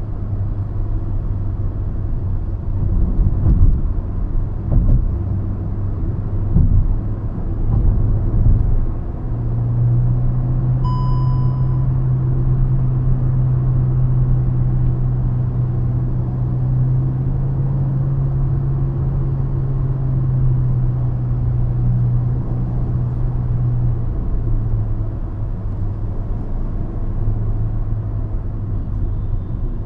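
Hyundai i20 driving, heard from inside the cabin: steady engine and road hum, with several thumps from bumps between about 3 and 9 seconds in. From about 9 to 24 seconds in, the engine settles into a steady, stronger drone. A short car-horn beep sounds about 11 seconds in.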